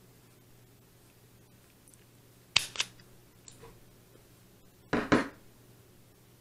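Sharp clicks and snaps of small objects being handled: a quick pair about two and a half seconds in, a fainter one soon after, and a louder pair about five seconds in, over a faint steady hum.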